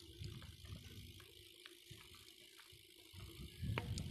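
BMX bike ridden along a dirt track: tyres rolling on the dirt with the chain and frame rattling and clicking. It gets louder about three seconds in, with a cluster of sharp clicks near the end.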